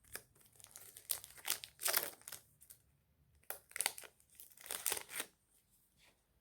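Trading cards and their foil pack wrapper being handled, a crinkling and rustling that comes in three stretches and dies away near the end.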